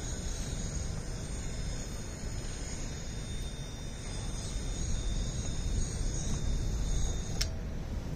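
Wind buffeting the microphone as a steady low rumble, with a thin, steady high-pitched whine of several tones over it that cuts off with a click near the end.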